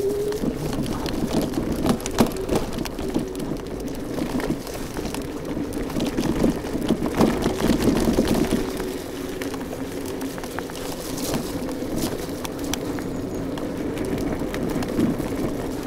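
iScooter iX5 off-road electric scooter riding over a rough, muddy gravel track. The tyres crunch and the scooter rattles over stones in irregular knocks, over a steady motor whine whose pitch shifts with speed.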